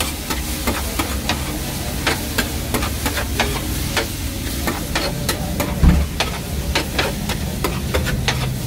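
A metal spatula scraping and clacking on a flat steel griddle as shredded cabbage is chopped and tossed, in quick, uneven strikes over a steady sizzle. There is one heavier thump about six seconds in.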